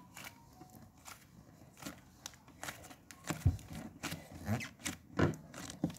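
Blue fluffy slime being stretched and squeezed in the hands, giving irregular small sticky clicks and pops that come thicker and louder in the second half.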